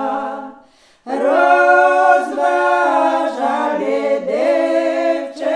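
A small group of women singing a traditional Podlasie village song a cappella, several voices together. A line ends and fades out about half a second in; after a short breath pause they come in together on the next line with long held notes.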